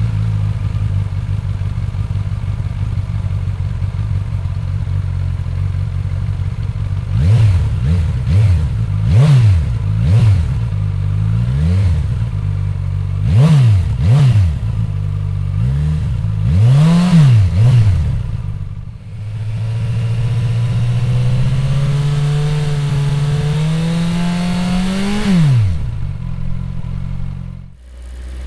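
Suzuki inline-four motorcycle engine idling, then blipped about ten times in quick succession. After a short dip it is revved in one long, steady climb for about five seconds before dropping back to idle.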